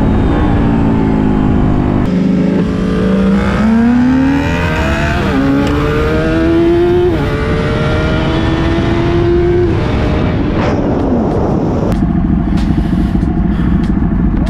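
Sport motorcycle engine in a roll race: it slows at first, then goes to full throttle about three seconds in, its pitch climbing and dropping sharply at two upshifts, and the rider backs off about ten seconds in. A heavy low rush of wind noise runs underneath.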